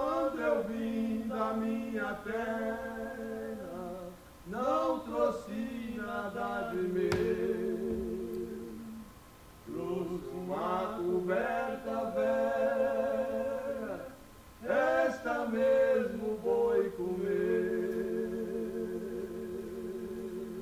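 A voice singing without accompaniment: four melodic phrases of held, wavering notes, each a few seconds long, with short breaks between them.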